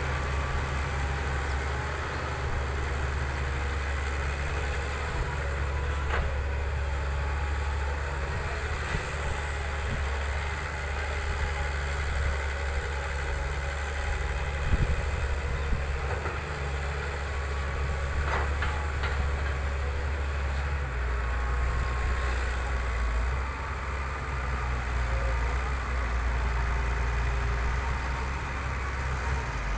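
Fiat-Hitachi 200.3 excavator's diesel engine running steadily as the machine digs and moves soil, with a few short knocks.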